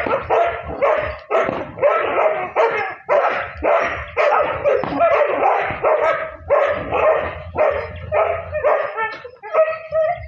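Dogs barking continuously in a rapid string of barks, about two a second.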